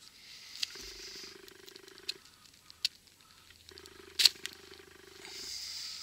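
Swiza folding knife blade cutting through thick jute rope: a rasping hiss of fibres being sliced, with a few sharp clicks along the way.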